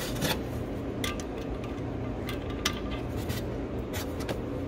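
Hand tools and small metal parts clinking and tapping: a string of about seven light, sharp clicks over a steady low background hum.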